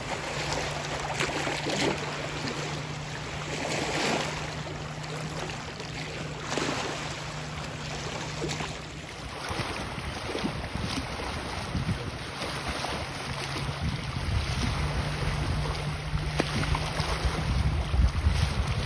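Wind buffeting the microphone over choppy lake water, with small waves lapping, in uneven surges. A steady low hum runs underneath, drops out about nine seconds in and comes back around twelve seconds.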